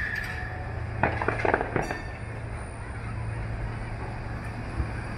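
A tram running along the street below with a steady low hum and a short high wheel squeal at the start. Distant fireworks bang and crackle between about one and two seconds in.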